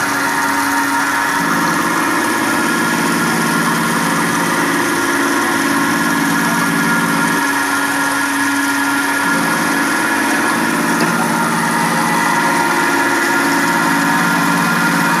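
Fanuc Tape Center Model D CNC vertical milling machine cutting with an end mill: a steady, loud machining whine with a lower hum that drops out and comes back every few seconds.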